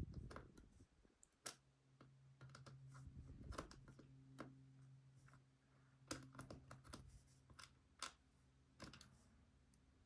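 Faint, irregular clicks and taps of small metal lock parts being handled: an ASSA Desmo sidebar being worked into its slot in the plug, with a faint steady hum underneath.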